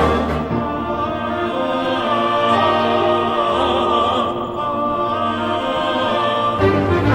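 Background music: a choir singing sustained chords.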